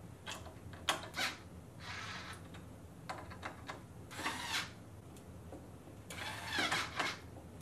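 A screw being worked into a flat-pack table part: a few sharp clicks, then three short grating bursts about two seconds apart. The screw is not going in.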